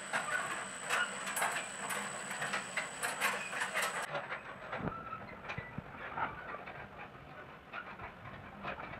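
Homemade rotisserie gear train of cut metal gears turning, driven by a cordless drill: an irregular clicking and clattering of teeth meshing. A thin high whine runs over the first four seconds and stops abruptly.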